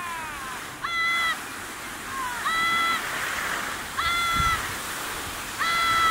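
A whistle blown in four short, even blasts about every one and a half seconds, each a steady two-pitch tone that rises quickly and then holds, over a steady hiss of skis sliding on snow.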